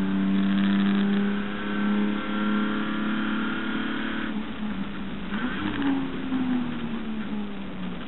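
Holden HQ race car's engine heard from on board, held at full throttle with its pitch slowly climbing. About four seconds in the revs drop sharply, rise briefly once more, then fall away lower.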